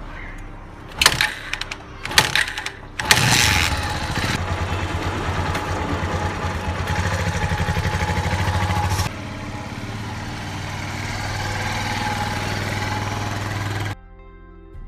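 A vehicle engine starting: a couple of sharp knocks, then the engine catches about three seconds in and runs with a steady rhythmic chug. It drops in level about nine seconds in and cuts off near the end, where soft music comes in.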